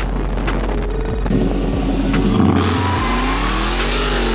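Chevrolet C10 short-bed pickup's engine revving during a burnout, its pitch climbing and then falling near the end.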